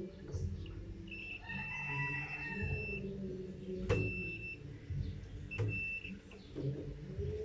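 A bird gives one long call that starts about a second in and lasts nearly two seconds. Later come a few short, high, steady beeps and two sharp knocks.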